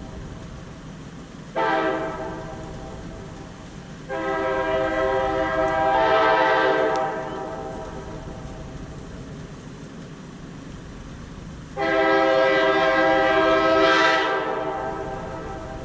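Loud horn sounding a chord of several notes in three blasts: a short one about a second and a half in, then two longer blasts of about three seconds each. Each blast fades away slowly after it stops.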